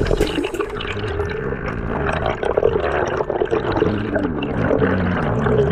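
Underwater bubbling and gurgling close to the microphone as a stream of air bubbles rushes past, a dense crackle of many small pops.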